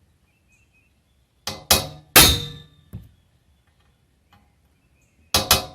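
Hammer blows on a metal punch held against a steel fence top-rail pipe, starting a hole for a screw. Each strike gives a sharp clink with a short metallic ring. There are about four strikes about one and a half seconds in, the third the loudest, then three quick strikes near the end.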